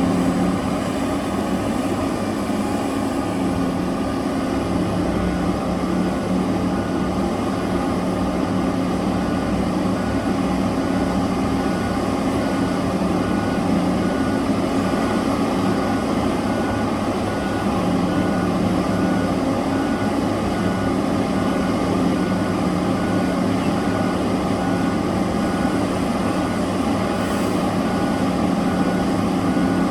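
Heavy mining machinery's diesel engine running under steady load, a constant deep hum with little change in pitch.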